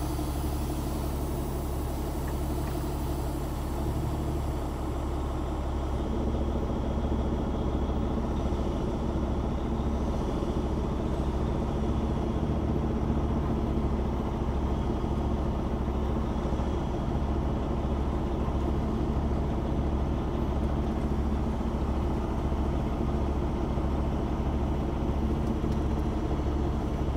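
Semi tractor's diesel engine running steadily at low speed, pulling a trailer that drags a burnt-out motorhome chassis along the ground.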